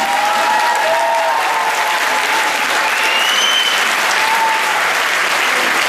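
Audience applauding steadily, with a few high shouts rising above the clapping.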